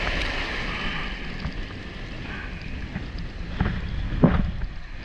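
Ocean surf breaking and washing around a camera at water level: foaming wash loudest at the start, then sloshing water with two sharp splashes about three and a half and four seconds in, and wind on the microphone.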